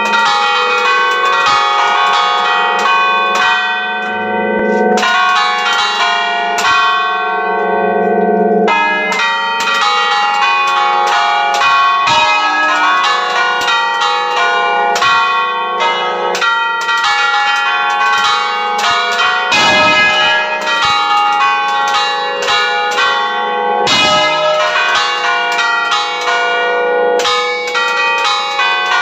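Several church bells rung in quick succession, heard close up from inside the belfry: a dense, continuous run of overlapping strokes, each ringing on over the next.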